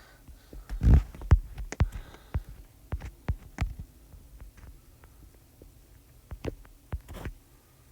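Irregular low thumps and sharp clicks of a camera being handled and moved, coming thick and fast between about one and four seconds in and then only now and then.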